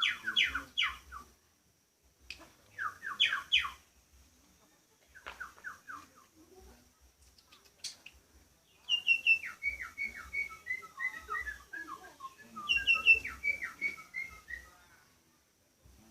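A songbird singing short bursts of quick chirps, then two longer phrases whose notes step down in pitch.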